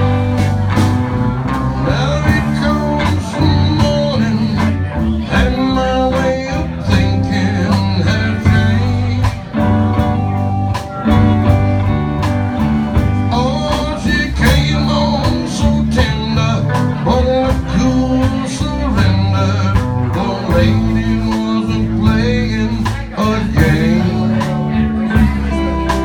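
Live blues band playing, with guitar over a steady bass line and drums.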